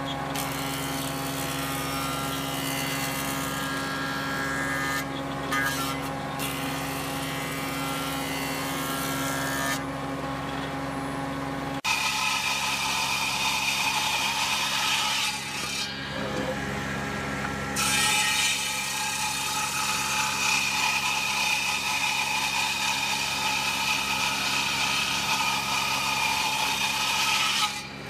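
Woodworking machine running steadily with a motor hum. About twelve seconds in the sound changes suddenly, and a louder high hiss of a board being cut is added on top.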